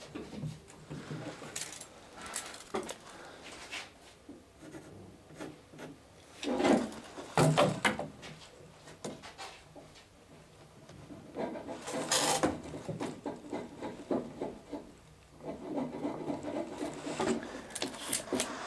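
Rubbing and scuffing on wood with a few louder knocks, from hands and tools working against the side of a wooden centreplate case while it is measured and marked. The loudest knocks come about a third of the way in and again just past the middle.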